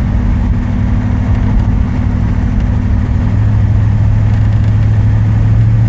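1963 Chevrolet Impala running, heard from inside the car as a steady low engine and road drone. A little over three seconds in, the drone shifts to a lower, stronger hum.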